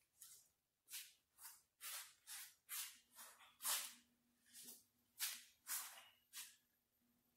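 Faint footsteps scuffing on a concrete floor at walking pace, about two steps a second.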